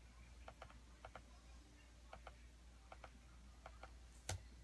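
Near silence with faint light clicks, mostly in quick pairs, coming about five times, then one sharper click near the end.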